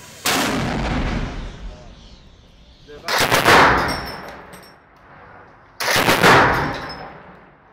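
A mortar fires once with a loud boom that rings on for about two seconds. Then a heavy mounted machine gun fires two short bursts about three seconds apart, each echoing off the concrete walls around it.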